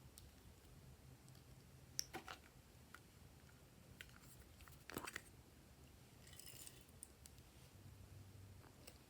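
Faint, sparse clicks and crackles of glossy slime being pressed and stretched by hand, with sharper clicks about two seconds in and about five seconds in.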